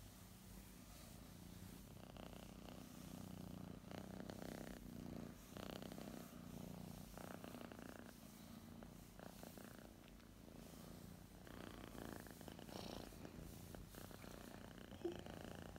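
A female calico cat purring steadily and faintly: a low hum that swells and eases in a slow rhythm. A short click comes near the end.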